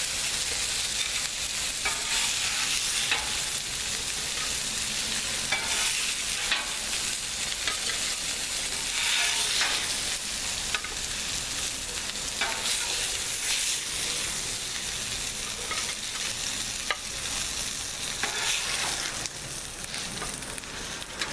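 Burger patties and vegetables sizzling steadily on a Blackstone flat-top griddle, with scattered scrapes and clicks of a metal spatula on the griddle as the burgers are lifted off. The sizzle eases slightly near the end.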